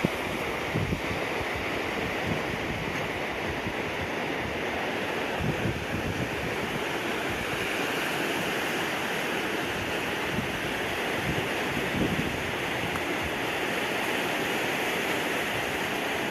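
Floodwater rushing steadily, a torrent-like hiss, with irregular low gusts of wind buffeting the microphone.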